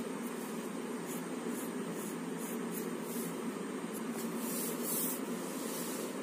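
Pencil scratching on paper in a series of short sketching strokes, the longest and loudest about four and a half seconds in, over a steady background hum.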